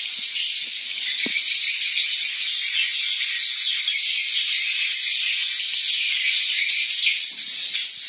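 Dense, steady high twittering and chirping of swiftlet calls that fills the roosting room, with a brief soft knock about a second in.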